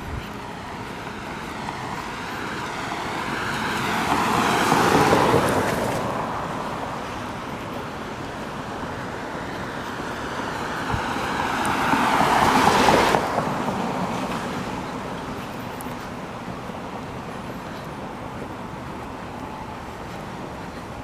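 Two road vehicles passing by one after the other, about eight seconds apart, each swelling up over a few seconds and then falling away, over steady outdoor background noise.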